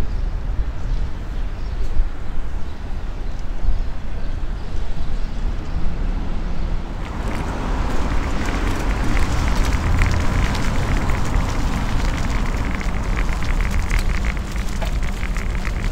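Wind noise on the microphone of a moving DDR folding bike, together with the tyres and frame rattling over the paving. About seven seconds in, a brighter hiss with fine crackling sets in.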